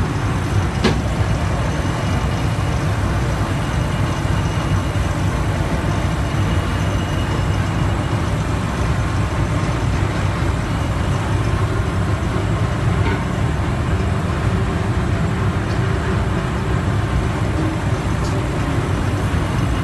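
Commercial refrigerator's condensing unit running, its compressor and condenser fan giving a loud, steady hum that is heaviest in the low end.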